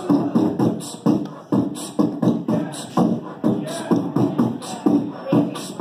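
A man beatboxing into a microphone through a bar PA, with mouth-made drum hits in a steady beat of about three a second.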